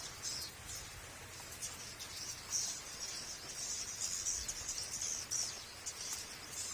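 High-pitched insect chorus, crickets or cicadas, buzzing in uneven pulses that swell and fade every second or so.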